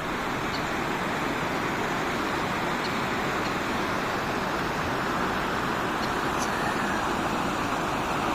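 Steady rushing of a fast-flowing mountain river over rocks, with a few faint, brief high chirps of small birds now and then.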